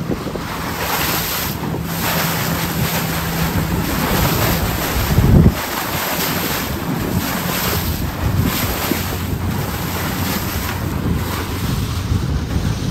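Wind buffeting the microphone over the rush of water from a small boat running across open sea. A low steady hum stops about four seconds in, and a heavy low thump comes about five seconds in.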